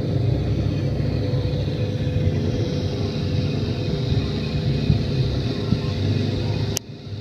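Metal lathe running, turning a new tyre on a 7¼-inch gauge locomotive wheel: a steady mechanical hum of the motor and gearing. A sharp click near the end, after which the sound drops away briefly.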